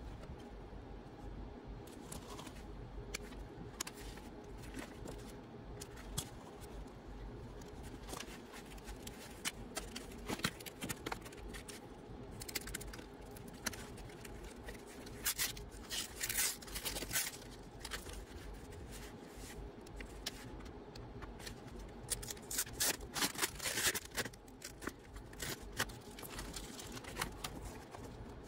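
Hands working with tools and parts: scattered clicks and light handling noise, with two louder spells of scraping, one about halfway through and one a few seconds before the end, over a steady low hum.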